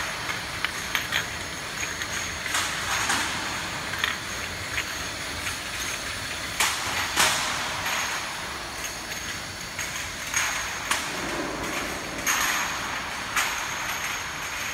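Vertical rotary glass-bottle washing machine running: steady mechanical noise with frequent sharp clinks and knocks, and several short hissing bursts from its washing jets.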